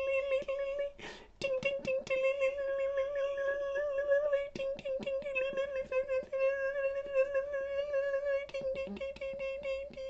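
Vocal imitation of rain on a tin roof: a steady hummed note held throughout, with many quick, irregular clicks over it, broken once about a second in by a short rushing noise.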